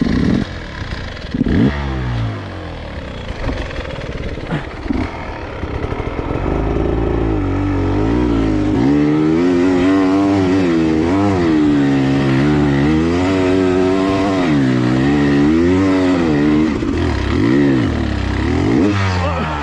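Dirt bike engine revving hard on a steep climb, the pitch rising and falling over and over as the throttle is worked. The revs are lower and choppier early on and rise to a busier, higher run from about six seconds in.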